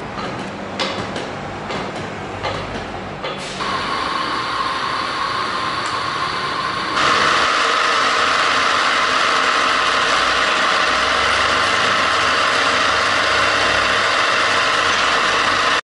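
Birmingham TPR-1100 radial drill being operated: a few clicks and knocks from its head controls at first, then the spindle drive running as a steady mechanical noise that steps up louder about three and a half seconds in and again about seven seconds in.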